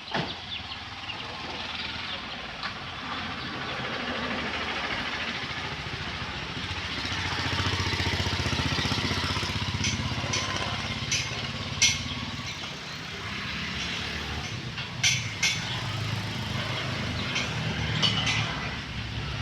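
Construction-site work noise during formwork centring: sharp knocks and clinks scattered over a steady background hum, which swells in the middle of the stretch, with the loudest knocks about twelve and fifteen seconds in.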